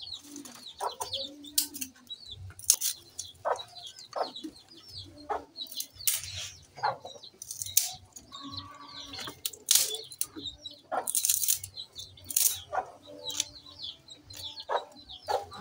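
Chickens clucking with small birds chirping, amid frequent sharp clicks and snaps.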